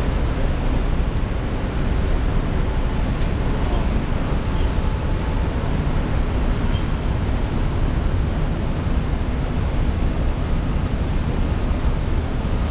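Steady low rumble and rushing noise of a ferry under way, heard from aboard.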